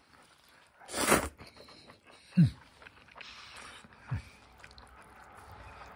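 Noodles slurped in one short noisy draw about a second in, then two short low 'mm' sounds from the eater, each falling in pitch, the first the loudest.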